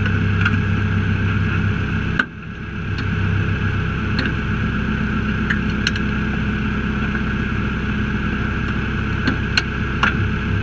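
Trophy Lite off-road race truck's engine idling steadily, with sharp clicks now and then; a loud click comes about two seconds in, and the engine sound dips briefly after it.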